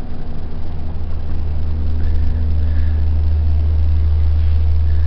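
Single-phase hydraulic guillotine's electric motor and hydraulic pump running without cutting: a steady low hum.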